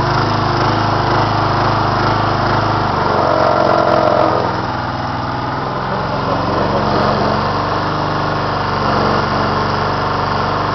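Small petrol engine of an AL-KO Farmer walk-behind sickle bar mower running steadily. About three seconds in its note shifts, with a brief louder whine, then it settles a little quieter.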